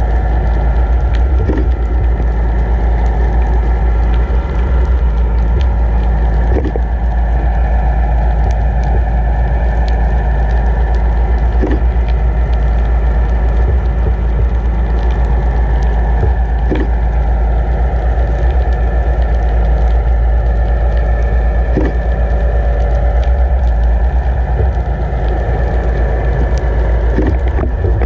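Muffled underwater rumble of water rushing past a towed camera, with the steady hum of the towing boat's engine and propeller carried through the water and a faint knock about every five seconds.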